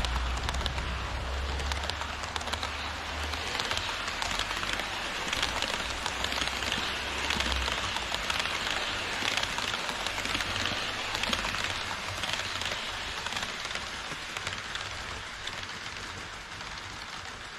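HO scale model train rolling on KATO Unitrack track, a steady rushing clatter of small metal wheels on the rails and roadbed as a long rake of Twilight Express passenger cars passes close by. A low hum stops about halfway through, and the noise eases a little near the end as the cars clear.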